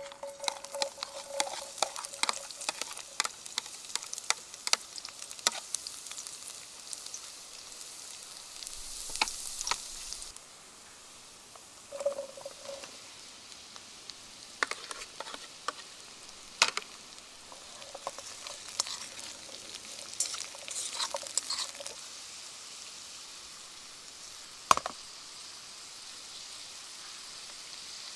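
Vegetables sizzling in a frying pan, with frequent clicks and scrapes of a utensil stirring against the pan and a louder knock near the end.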